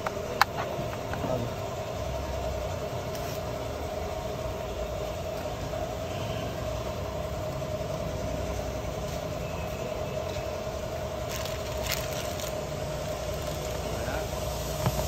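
A steady mechanical hum with a constant tone, and one sharp click about half a second in as the newly fitted cruise control stalk on the Toyota Prius steering column is worked; a few fainter ticks come later.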